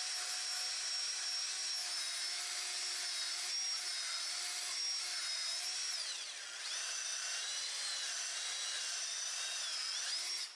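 Handheld power tool running at high speed, whittling down a flange in an intake manifold. Its pitch sags under load about six seconds in, recovers, and the tool stops abruptly at the end.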